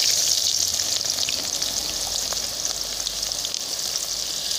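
Sliced onions frying in hot oil in an aluminium karahi: a steady sizzle with scattered small pops, easing off slightly over the seconds after they go in.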